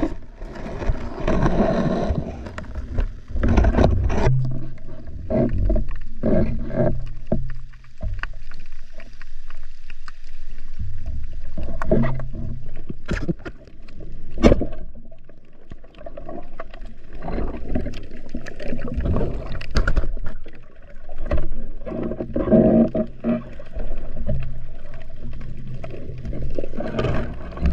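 Muffled underwater sound of water moving around the diver, heard through an action-camera housing: a low rumble with a few sharp clicks, most clearly about halfway through.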